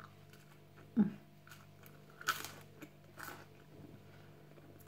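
A person biting and chewing crunchy toast and crackers, with crisp crunches about two and three seconds in. A short, low sound falling in pitch comes about a second in and is the loudest moment.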